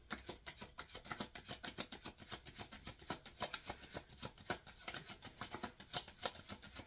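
A deck of tarot cards being shuffled by hand: a quick, uneven run of soft card clicks and flicks, many to the second.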